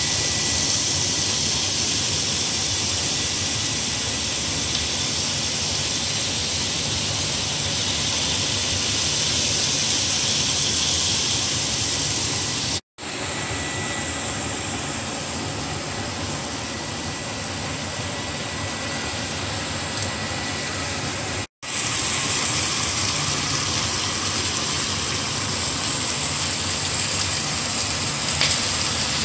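Steaks and sausages sizzling on a George Foreman electric contact grill: a steady hiss, cut off twice for an instant.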